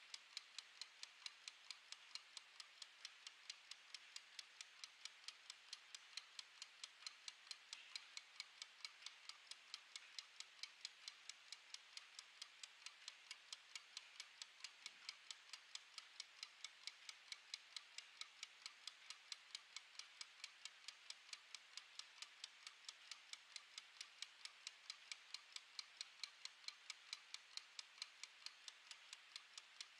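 Wind-up mechanical kitchen timer's clockwork ticking as it counts down: a faint, fast, perfectly even run of ticks.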